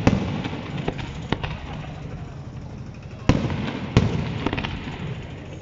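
Fireworks shells bursting: a sharp bang right at the start, a smaller one just after a second in, then two loud bangs at about three and four seconds, each trailing off, with short spells of crackling after the later ones.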